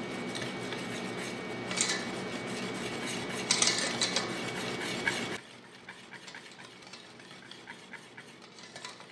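Wire whisk stirring thick gram-flour batter in a stainless steel bowl, its wires scraping and clinking against the metal. Louder scrapes come about two and three and a half seconds in, and the stirring turns much quieter a little after five seconds.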